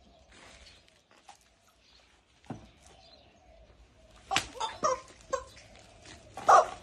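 Screaming rubber chickens squeezed in short, pitched squawks: four quick ones about two-thirds of the way through, then a louder one near the end.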